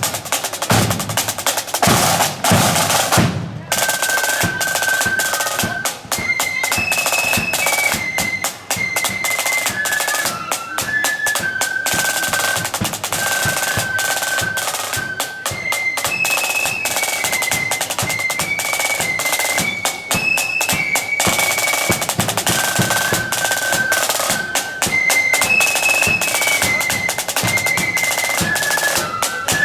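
Marching flute band playing on the march: snare and bass drums beat alone for the first few seconds, then the flutes come in with a high, stepping melody over the drums for the rest of the time.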